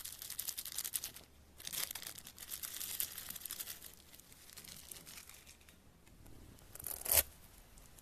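Clear plastic bag crinkling as heart-shaped glitter is shaken out of it onto foam-bead slime. The crinkling comes in two spells of fast crackle in the first few seconds, then dies away, and a short, louder crackle comes near the end.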